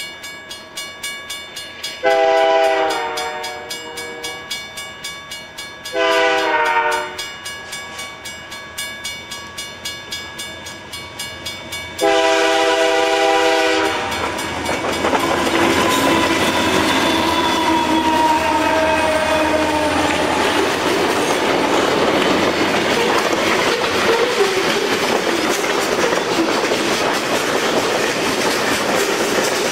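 Freight locomotive's multi-note air horn blowing three blasts, the last and longest ending about 14 seconds in. Then a loaded freight train rolls by close up, its wheels clacking over the rail joints in a steady rolling noise.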